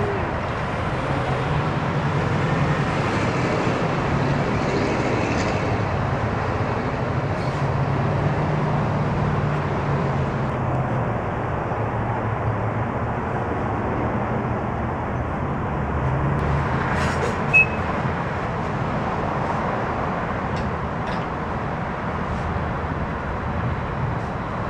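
Steady road traffic: engines and tyres of passing cars and trucks, with a low engine hum underneath. One brief sharp sound about two-thirds of the way through.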